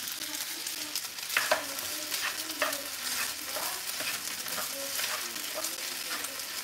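A utensil stirring and scraping pasta around a black nonstick frying pan, with irregular scrapes and clicks over a steady sizzle from the hot pan.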